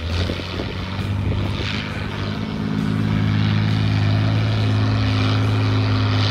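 Off-road competition truck engine running with a steady drone; it gets louder about two and a half seconds in and holds there.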